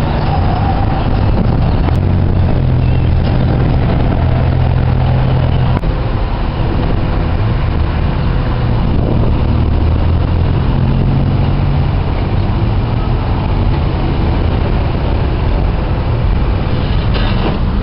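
Large pickup truck's engine running close by, a steady low rumble whose pitch shifts a couple of times as it creeps and stops.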